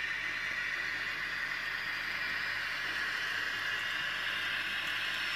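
Kato N-scale VT 18.16 model train running in reverse along the track, its motor and wheels giving a steady, even whirring hiss.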